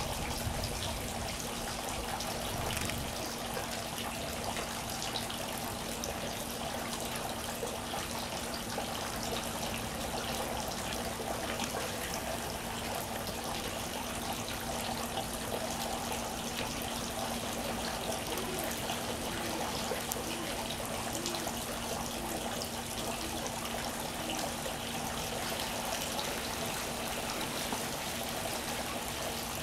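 Steady, even background noise with a constant low hum, and a few faint clicks.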